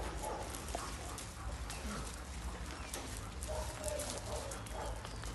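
Shelter dogs in kennel runs, giving a few short, faint calls about three and a half seconds in, over scattered light clicking and rustling.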